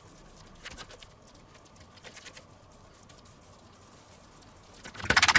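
Gloved hand pressing ground meat flat over bacon slices on a wooden board, with faint soft handling noise. Near the end comes a short, loud rattle of rapid clicks.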